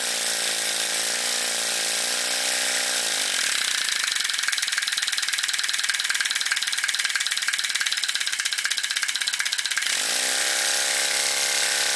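A Microcosm S10 model mill steam engine runs fast on compressed air, with a steady hiss of exhaust air. A pitched hum drops in pitch and fades about three seconds in, giving way to rapid, even ticking until the hum comes back about ten seconds in.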